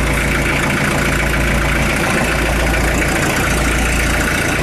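Kubota L48 backhoe's diesel engine idling steadily just after a cold start.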